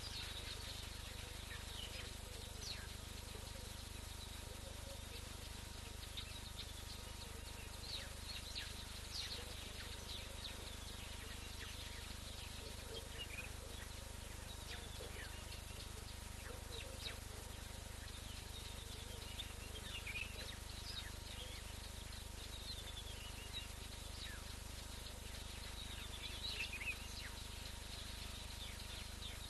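Bush ambience at dusk: scattered short chirping bird calls, a louder flurry near the end, over a steady hiss, a faint steady tone and a low hum from the camera's microphone.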